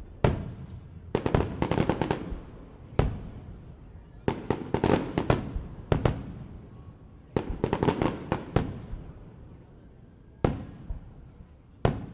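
Aerial fireworks going off: single booms, mixed with volleys of rapid crackling reports, each trailed by a rumbling echo. Three tight clusters come about 1, 4 and 7 seconds in, and single bangs fall between them.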